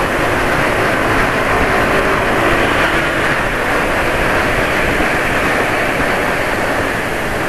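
Steady riding noise of a motorbike underway: engine drone mixed with the rush of wind and road noise, even throughout.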